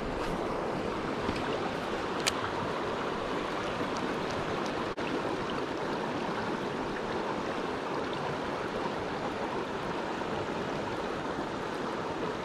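Steady rush of turbulent water churning through a canal's gates, with a sharp click about two seconds in.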